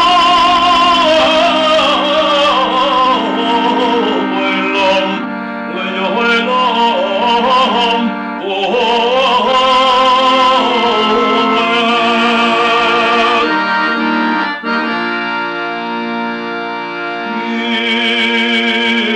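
A lyric tenor cantor sings an ornamented liturgical melody with vibrato over sustained harmonium chords. In the second half the voice drops out for several seconds while the harmonium holds its chords, and the voice comes back near the end.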